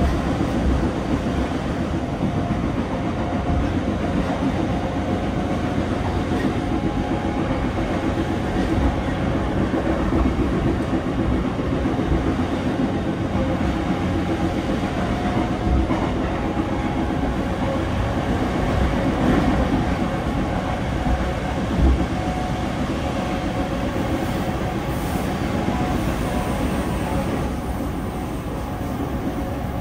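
Running noise inside the passenger car of a JR East E233-0 series electric train: a steady rumble of wheels on rail with a faint steady hum, broken by a few thumps over rail joints, the sharpest about two-thirds of the way through.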